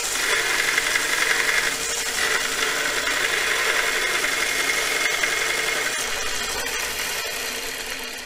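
Harbor Freight 1x30 belt grinder, converted to a DC motor and running at half speed, grinding the steel edge of a lathe tool held against the belt: a steady grinding hiss. Near the end the motor is switched off and the sound winds down.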